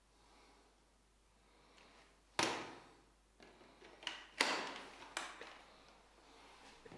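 Snap-fit clicks of a Dyson V10 stick vacuum being assembled by hand. There is one sharp click about two and a half seconds in as the extension wand locks into the handheld body, then a few more clicks and knocks between four and five seconds in as the parts are fitted together.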